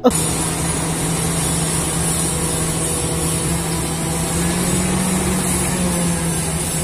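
Crawler bulldozer's diesel engine running steadily as the machine moves, its note lifting slightly about four seconds in and then settling.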